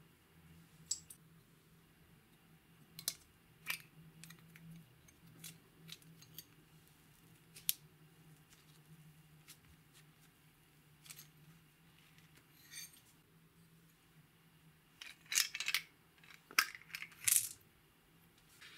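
Scattered light clicks and taps of small items being dropped into a glass dish of slime toppings, with a louder run of clicks near the end as plastic ring beads are set down.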